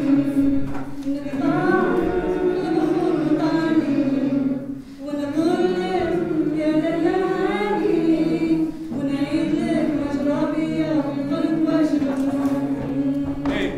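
A group of voices singing a cappella, a low note held steadily underneath while other voices move above it, with short breaths about five and nine seconds in.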